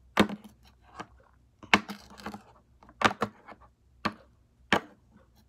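A utensil scraping and knocking against a container while slime mixture is scraped from it: about eight sharp clicks and scrapes at irregular intervals.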